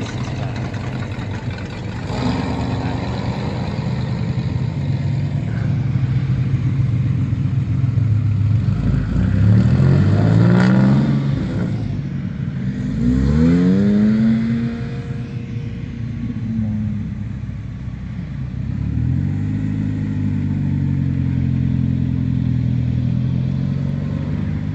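Classic and sports cars driving past one after another, their engines revving as they pull away. The loudest part is two climbs in engine pitch near the middle, and a steadier engine note follows toward the end.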